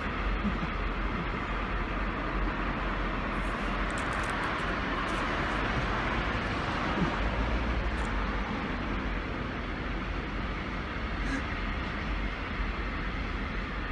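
Steady road traffic noise, a hiss and low rumble, swelling about midway as a vehicle goes by.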